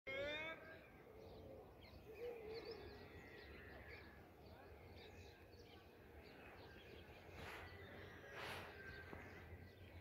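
Faint outdoor ambience with scattered small bird chirps. A brief high-pitched call rings out right at the start, and two soft whooshes come near the end.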